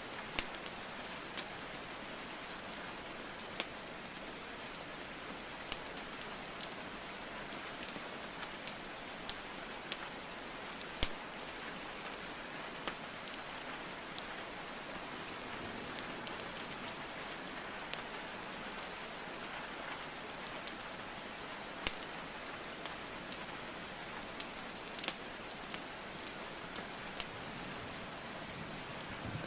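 Steady rainfall hiss with scattered, irregular sharp crackles and pops from burning logs in a fireplace, one louder pop about eleven seconds in.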